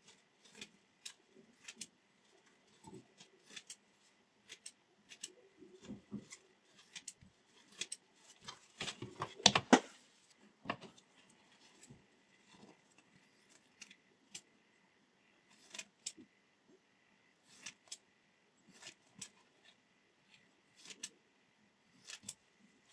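Scissors blades opening and closing in a series of sharp, irregular snips and clicks, with a denser, louder flurry about nine to ten seconds in.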